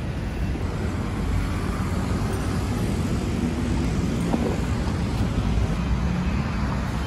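Steady city street traffic noise: a low rumble of passing road vehicles.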